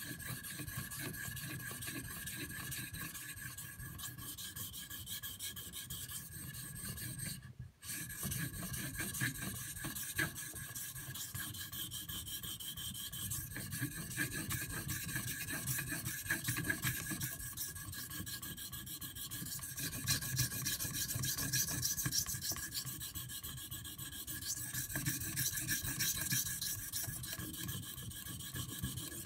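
CPM 3V steel knife blade stroked on a Shapton Pro whetstone: continuous scraping rubs of steel on stone, with a brief break about eight seconds in. The bevel is still being ground because the edge is not yet fully apexed and shows a line of reflected light.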